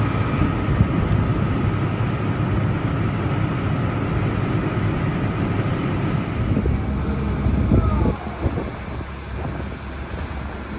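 Combine harvester's diesel engine running steadily just after starting, then dropping in level about eight seconds in.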